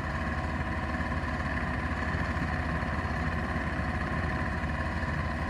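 Terex TC85 compact excavator's diesel engine idling steadily.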